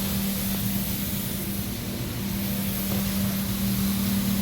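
Horizontal perforated-roller slitting machine running steadily: a constant mid-low hum over an even hiss, with a brief slight dip about two seconds in.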